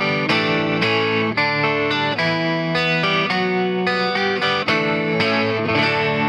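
Electric 12-string guitar strumming a chord progression with a bright jangle, chords changing about every half second to a second; the last chord is left ringing near the end.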